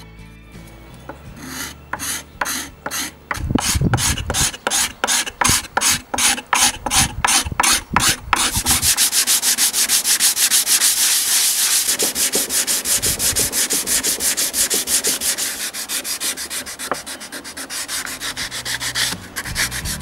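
Hand sanding of an old coffee grinder's wooden box with 180-grit sandpaper wrapped on a block. About two separate strokes a second at first, then from about eight seconds in quick, steady back-and-forth strokes that ease off near the end.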